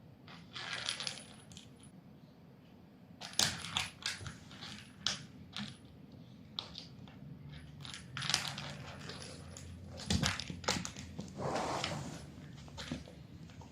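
A kitten at play: light clicks, taps and short scraping rustles at an uneven pace, the sound of a small hard object being knocked about and claws or paws scrabbling.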